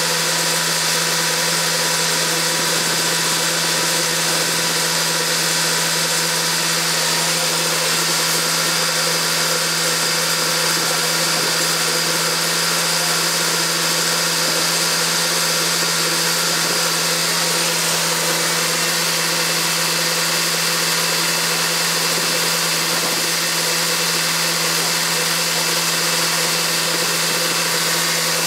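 Farm machinery engine running steadily at constant speed: an unbroken drone with a strong steady hum.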